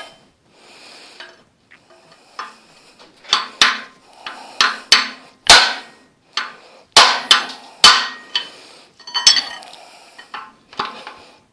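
Hammer blows on a steel bar driven against a seized piston in a Ford flathead V8 block: about a dozen sharp metallic strikes with short ringing, irregularly spaced, starting about three seconds in.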